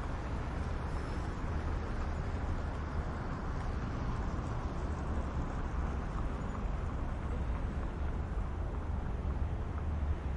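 City traffic hum: light traffic at a crossroads heard as a steady low rumble, with no single vehicle or event standing out.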